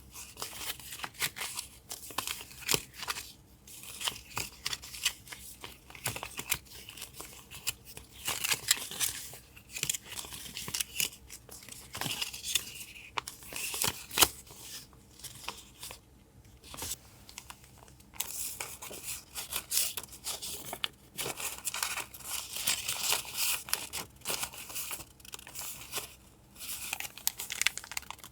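Paper being handled, rustled and torn, an irregular crackling run with sharp little clicks.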